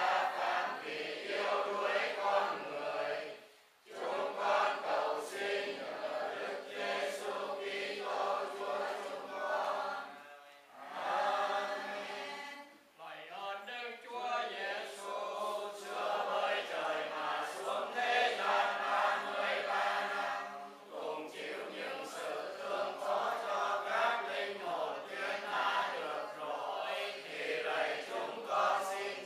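A congregation chanting Vietnamese Catholic prayers in unison, many voices holding long sung phrases with brief pauses between them.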